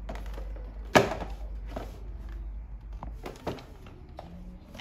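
Hollow plastic toy-playset panels knocking and clacking as they are handled and fitted together, with the loudest knock about a second in and a few lighter ones after.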